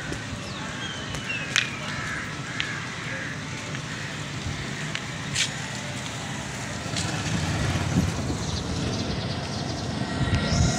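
Outdoor street background noise with faint distant voices and a few sharp clicks.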